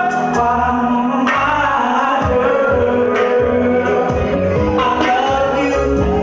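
A man singing long held notes into a handheld microphone over loud amplified backing music with a steady drum beat.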